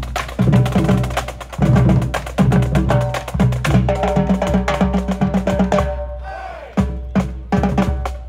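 High school marching band playing on the march: snare and bass drums beat out a quick rhythm under held brass notes. The music breaks off for a moment about six seconds in, then the drums hit again.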